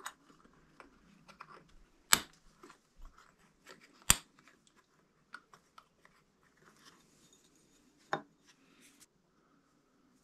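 Small metal clicks and clinks as an aluminium Rohloff hub cap and its thin-section ball bearing are handled and worked apart by hand, with sharp clicks about two and four seconds in and another just after eight.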